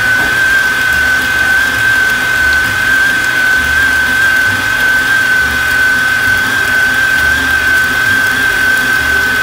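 Electric stand mixer running at a steady speed with a constant high-pitched motor whine, its flat beater churning banana bread batter in a stainless steel bowl until smooth.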